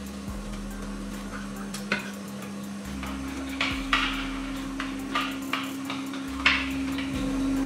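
Light metallic clinks and taps of tools and parts being handled, about half a dozen at irregular intervals, over a steady low hum.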